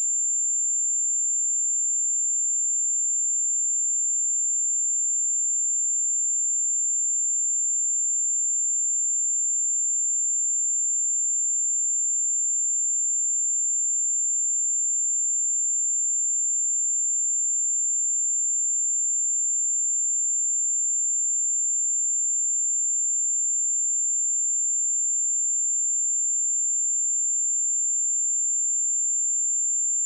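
A pure 7265 Hz sine-wave test tone: a single steady high-pitched whistle, unchanging in pitch and level.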